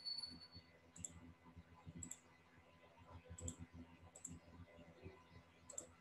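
Faint computer mouse clicks, five of them spaced about a second apart.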